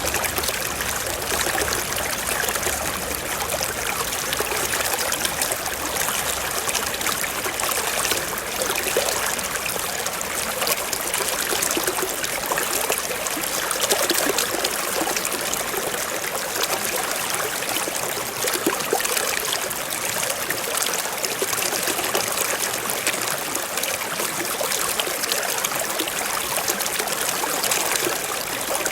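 Water from a waterfall splashing and flowing in a steady, even rush.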